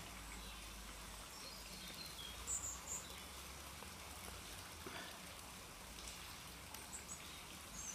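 Faint outdoor background hiss with a few short, high bird chirps, about two and a half seconds in and again near the end. Soft handling noises come from the strimmer line being tied onto a wooden bow.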